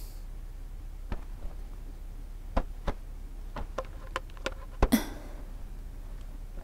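A scatter of small sharp clicks and taps, about a dozen, and a brief rustle of bedding near five seconds in, as a person shifts about on a bed and reaches by the pillow, over a low steady hum.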